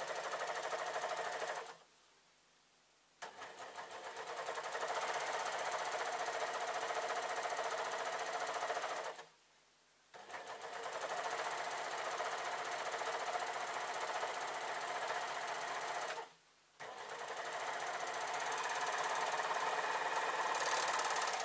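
Overlocker (serger) stitching a long seam on jacket fabric. It runs at a steady speed and stops briefly three times, about 2, 9 and 16 seconds in, before running again.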